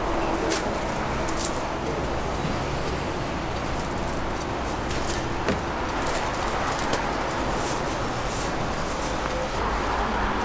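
Steady background noise at a busy street-food stall: a constant hiss and hum with a few light clicks and knocks scattered through it.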